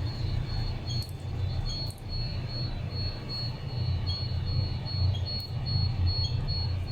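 Gas detection alarm panel beeping, a high short tone repeating about three times a second, while still in alarm before being reset. Under it runs a steady low rumble.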